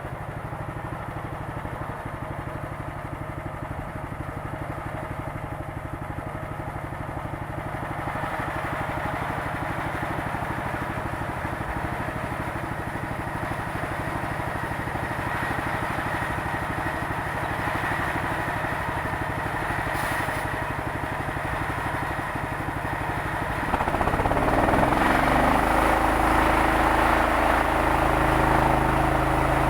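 The engine of a home-built sawmill running steadily and slowly getting louder. About 24 seconds in it jumps louder, its pitch dips and settles lower, and a rougher noise comes in on top.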